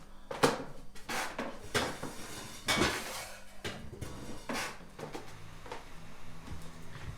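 Kitchenware clattering: a string of irregular knocks and clinks as dishes and utensils are handled, with the loudest knocks about half a second in and near three seconds.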